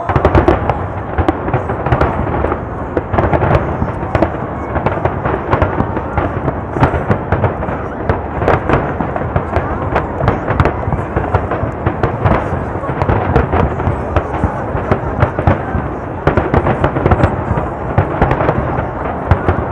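Aerial firework shells bursting in a rapid, continuous barrage: many overlapping bangs a second over a steady rumble, with no break.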